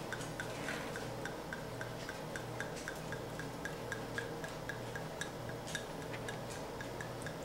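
Faint, even ticking, about three ticks a second, over a steady low hum.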